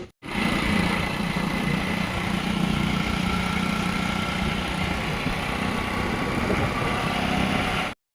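Motorcycle engine running steadily, cutting off suddenly near the end.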